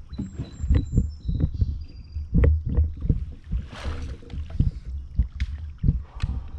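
Kayak being paddled: the paddle blade splashing through the water, with frequent low, irregular knocks of the paddle and gear against the plastic hull.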